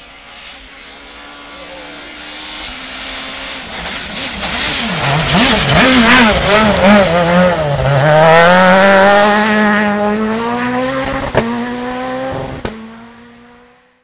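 Rally car engine approaching at full throttle on a gravel stage, its revs swinging up and down as the driver works the throttle through the corner, then climbing steadily as the car accelerates away and fades. Two sharp cracks sound a little before the end.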